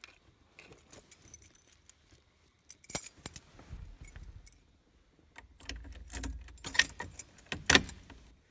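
A bunch of keys jangling and clicking as a key is put into the truck's ignition, in short bursts that are loudest near the end.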